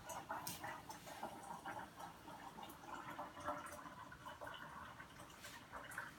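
Faint water trickling and dripping at a kitchen sink, with scattered light clicks and knocks.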